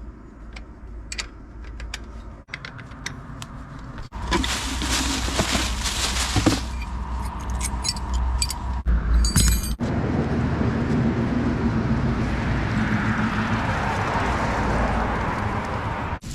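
Clicks and metallic clinking from hands-on work, broken by several edit cuts, then a vehicle running steadily with road noise through the last six seconds or so.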